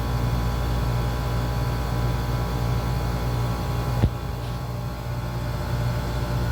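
Chiller's compressors running with a steady, loud hum, with a single sharp click about four seconds in.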